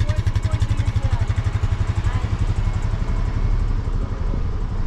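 Chevrolet Colorado ZR2 Bison pickup driving slowly, a loud low rumble of engine and road with a fast throbbing pulse that smooths out about three seconds in.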